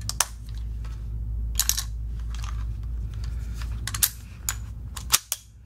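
Scattered sharp clicks and clacks of a non-firing replica AR-15 and dummy rounds being handled as a bolt-over malfunction is set up: the bolt locked back and a dummy round dropped in. A low steady hum sits underneath.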